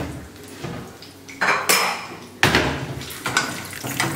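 Metal kitchen utensils clattering: a spoon scraping and knocking against cookware in several strokes, the loudest about one and a half and two and a half seconds in.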